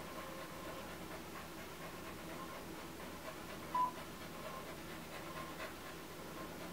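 Dog panting steadily, with one short high-pitched beep a little before the middle.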